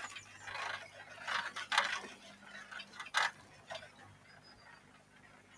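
Bicycles rolling along, with irregular ticking and rattling clicks; a faint steady low hum underneath.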